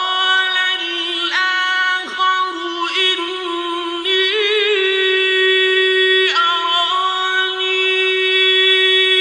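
Quran recitation in the melodic chanted style: a single reciter's voice holding long, drawn-out notes. About four seconds in there is a wavering ornamental trill.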